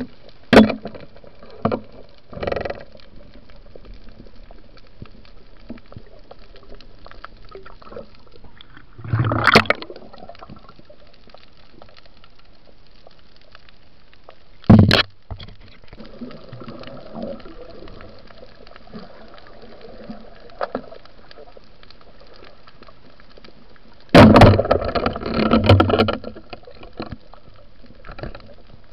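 Underwater sound of a night spearfishing dive, heard through a waterproof camera housing: a steady hiss broken by sharp clicks and knocks, a short burst of water noise about nine seconds in, and a longer, louder burst of water noise and knocks near the end.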